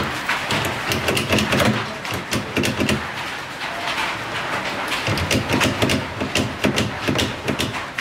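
Pliers working at the lid hinge of a plastic washing machine: a dense run of sharp clicks and light knocks of tool on plastic.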